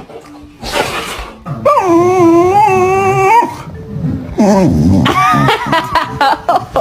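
A dog vocalizing: one long, steady, drawn-out note starting about two seconds in, then a run of shorter calls that fall in pitch.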